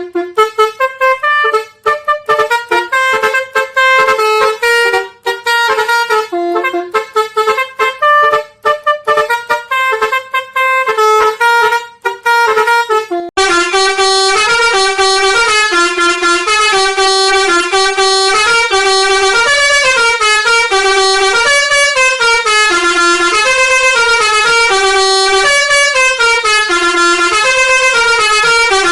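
Indonesian bus 'telolet' basuri multi-tone horn playing a melody of short stepped notes. About thirteen seconds in it cuts to a second horn playing a continuous run of notes.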